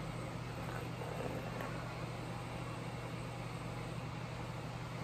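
A steady low background hum at an even level.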